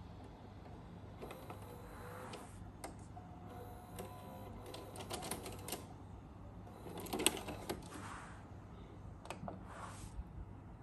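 Sharp VC-MA30 VHS deck's tape transport mechanism at work as the tape is stopped and unloaded: a series of mechanical clicks and clunks with brief motor whirs, busiest and loudest about seven seconds in.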